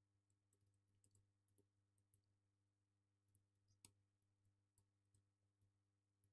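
Near silence with faint, irregular computer mouse and keyboard clicks, one sharper click about four seconds in, over a low steady electrical hum.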